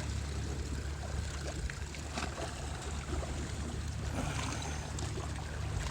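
Small waves of the bay lapping and trickling against shoreline rocks, over a steady low rumble.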